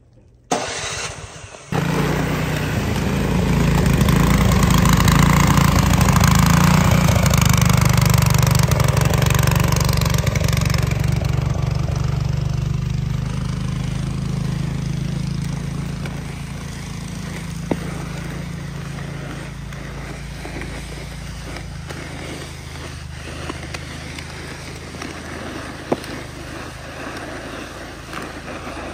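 Engine starting: a short burst about half a second in, then it catches near two seconds and runs, loudest early on and settling to a lower, steady running sound after about fifteen seconds.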